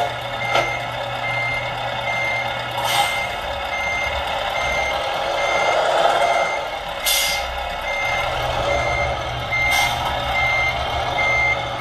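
Electronic sound module of a radio-controlled Tamiya Scania R770 model truck playing its reversing beeper through the model's small speaker, a high, evenly repeated beep as the truck backs up. Under it runs the module's simulated diesel engine note, and a few short hisses come in between.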